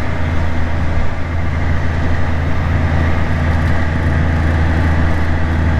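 Tractor engine running at a steady speed, a constant low drone with no changes.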